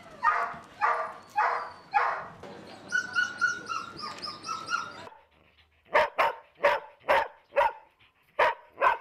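Dogs barking repeatedly. After a short lull about five seconds in, the barks come sharp and quick, about two a second.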